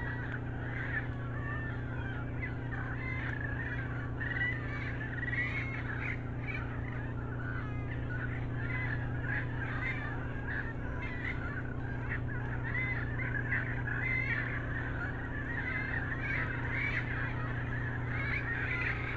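A continuous chorus of many short, wavering animal calls, thick with overlapping voices, over a steady low electrical hum.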